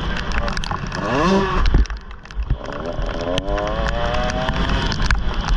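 Off-road motorcycle engine revving as it is ridden: the pitch climbs about a second in, the throttle drops off near two seconds, then it pulls up again. Heavy wind rumble on the microphone and scattered knocks run underneath.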